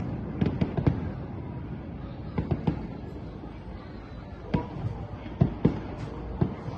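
Sporadic bangs of distant aerial fireworks in small clusters of two or three, with gaps between, as the display thins out.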